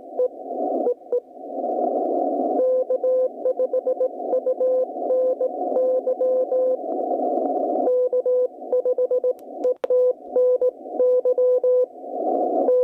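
Morse code (CW) signal on the HF ham bands: a single steady-pitched tone keyed on and off in dots and dashes over a band of hissing atmospheric static. It comes from an Icom IC-7300 receiver with no filtering and plays through a BenQ treVolo voice-clarity speaker in its regular mode. The static swells and drops a few times, and there is one sharp click just before the end.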